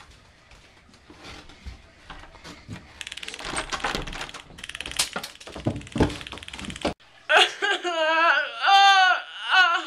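A doorknob lock rattling and scraping as it is picked with a toothpick, with a few sharp knocks. It cuts off abruptly about seven seconds in, and a boy's loud wailing sob follows, swooping up and down in pitch.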